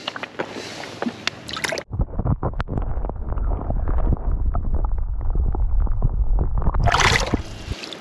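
Water sloshing and gurgling close to the microphone. From about two seconds in it turns muffled and rumbling, then clears with a splash near the end.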